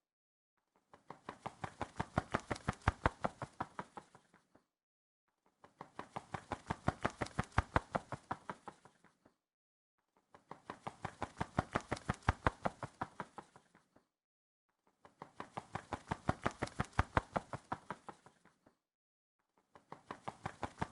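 Bird wings flapping in quick, even beats, about eight a second. The beats come in passes that swell and fade over about four seconds each, with a short silence between. There are four full passes, and a fifth begins near the end.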